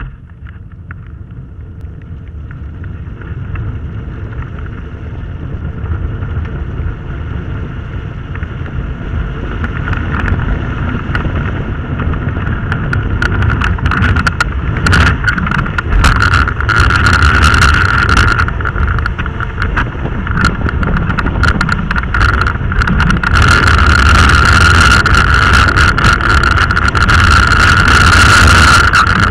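Gravity racer (soapbox car) rolling downhill on wet asphalt, with no engine: tyre rumble and wind rush grow steadily louder as it gathers speed. A steady high whine rises with them, and short knocks and rattles come in about halfway through.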